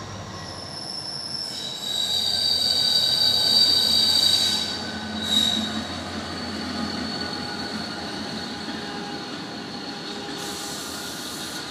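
Container freight train pulled by a Renfe class 333.3 diesel-electric locomotive rolling past, its wheels giving a high, steady squeal. The squeal and the train noise are loudest in the first few seconds as the locomotive goes by, with one short sharp squeal just after. After that the container wagons roll on with a lighter squeal.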